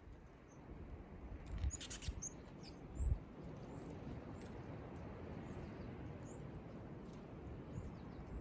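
Small wild birds calling with brief, high, scattered chirps, a quick cluster of sharp chirps about two seconds in. Two soft low thumps near the start, over a faint outdoor hiss.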